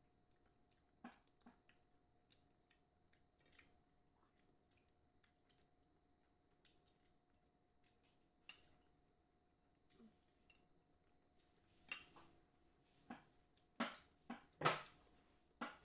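Faint eating sounds: scattered soft clicks and smacks of chewing and of fingers picking food from plates and dipping it in sauce. A cluster of louder ones comes near the end.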